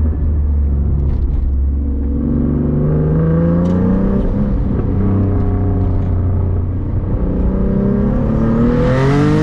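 Turbocharged Nissan 370Z NISMO's V6 engine running under load: a steady low drone, then rising in pitch twice as the car accelerates hard.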